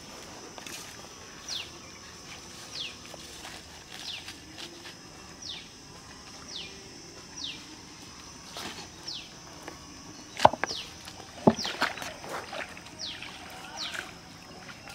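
A bird calls over and over, a short down-slurred chirp about once a second, over a steady thin high background hum. In the second half come two louder sharp sounds about a second apart.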